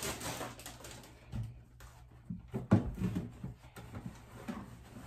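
Soft handling noises: a few light knocks and rustles as toilet paper rolls and their organizer are handled and pushed into place, with the sharpest knock a little before halfway through, over a faint steady low hum.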